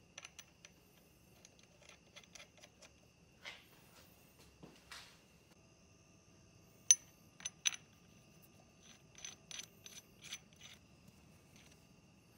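Scattered light metallic clicks and clinks of a hand tap and tools against a steel plate held in a steel chuck as threads are cut by hand in drilled holes. The sharpest click comes about seven seconds in, and a quick run of clinks follows a couple of seconds later.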